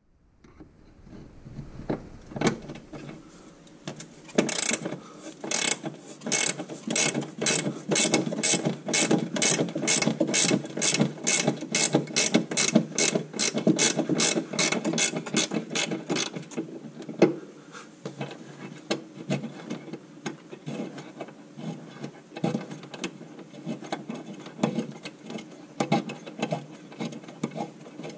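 Hand ratchet clicking as bolts on a car's front body panels are undone. Sparse clicks at first, then a fast, even run of about three clicks a second for some twelve seconds, then slower, softer clicking.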